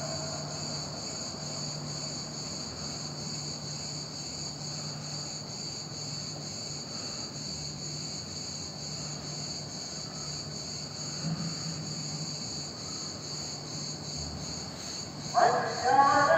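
Steady high-pitched insect chirring over a low hum during a pause in the call to prayer; the muezzin's sung voice comes back in near the end.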